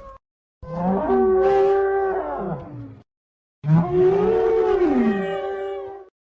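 Two long, pitched dinosaur bellows, sound effects for Aladar the Iguanodon, each about two and a half seconds with a wavering pitch. A clean silent gap about halfway separates them.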